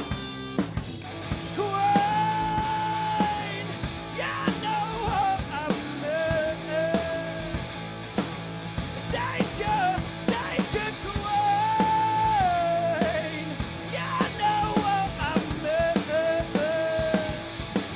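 Live rock band playing: electric guitar, bass guitar and drum kit, with a male singer at the microphone. The same sung phrase comes round twice, about nine seconds apart.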